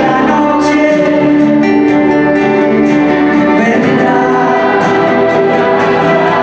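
Live performance of a ballad: a woman singing into a microphone over acoustic guitar and violin accompaniment, holding a long note for the first few seconds before the melody moves on.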